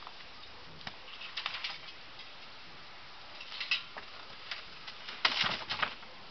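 Scattered wooden knocks and creaks as a wooden platform is levered up by a hand-operated lever lifting tool and tipped over, with the loudest clatter about five seconds in as the platform comes down.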